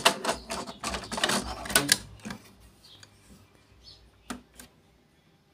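Plastic clicking and rattling as a Canon PGI-1400XL black ink cartridge is pushed and seated into the carriage of a Canon Maxify MB2340 printer: a quick run of clicks over the first two seconds, then two single clicks near the end.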